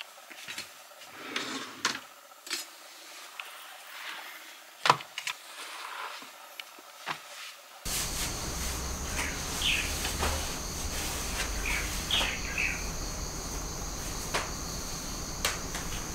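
Scattered soft clicks and knocks. From about eight seconds in, a steady high-pitched trill with a few short chirps sits over low background noise.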